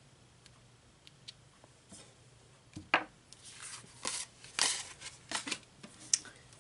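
Paper sticker sheets being picked up and shuffled on a desk: a few faint ticks at first, then, from about three seconds in, a string of sharp taps and short paper rustles.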